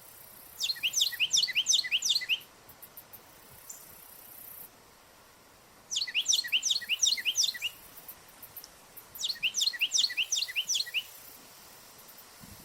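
Carolina wren calling: three bursts, each about two seconds of quick, whistled notes repeated in a rapid series, with pauses of a few seconds between bursts.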